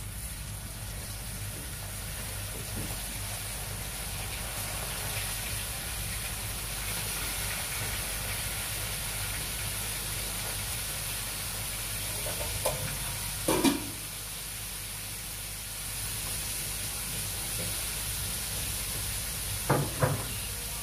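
Flour-dredged fish frying in a pan of hot oil: a steady sizzle throughout, with a few brief louder knocks about two-thirds of the way in and again near the end.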